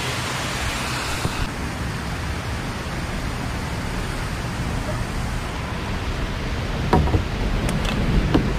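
Steady rushing noise of wind and water around a kayak, with two light knocks near the end.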